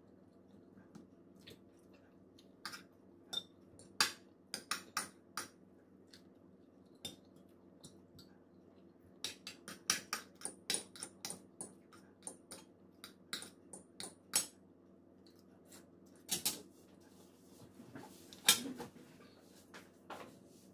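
Metal spoon and fork clinking and scraping on a ceramic plate in scattered runs of sharp clicks, with a louder knock about a second and a half before the end, over a faint steady hum.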